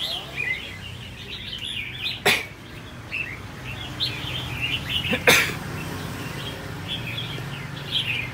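Caged songbirds, mostly red-whiskered bulbuls, chirping and calling all through, with two loud, sharp bursts about two and five seconds in.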